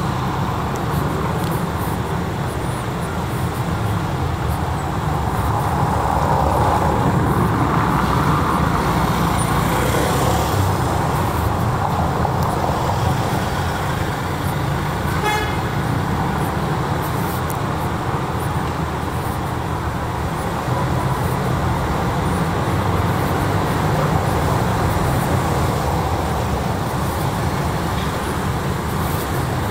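City street traffic: a steady rumble of passing cars and other vehicles, with a brief car horn toot about halfway through.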